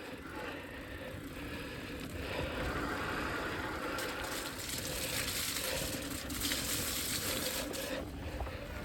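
Mountain bike being ridden along a dirt trail: steady tyre and drivetrain noise, with a louder rushing hiss from about four to eight seconds in.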